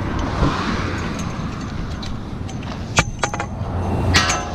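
Road traffic passing on the highway bridge, a steady rumble, with a sharp click about three seconds in and a short ringing clink about four seconds in.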